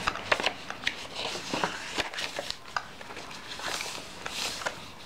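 Paper pages of a handmade journal being turned and handled: rustling and crinkling with many light clicks and taps.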